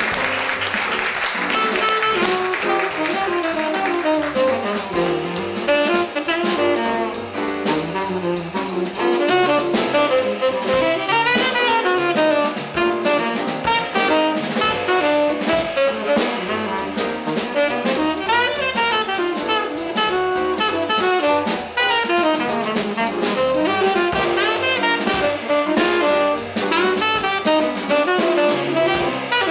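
Small jazz combo playing an instrumental solo chorus: a saxophone improvises fast, running lines with bends over piano, bass and drum kit.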